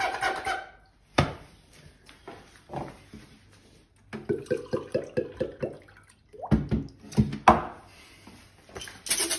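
Beatbox mouth sounds imitating a kitchen task: a sharp click, then water glugging from a pitcher into a glass at about five pulses a second, ending in a few sharp knocks.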